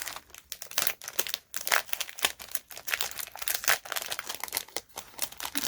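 Paper and plastic packaging crinkling and rustling as small envelopes and sticker packets are handled and opened, with irregular sharp crackles.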